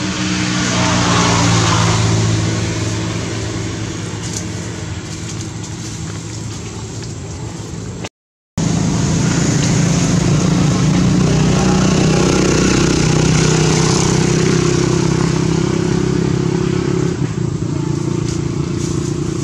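A motor engine runs steadily with a low hum. The sound cuts out completely for about half a second around eight seconds in.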